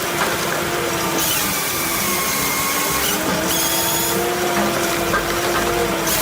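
Heavy wood-processing machine running under load: a steady mechanical drone with several whining tones that waver slightly in pitch.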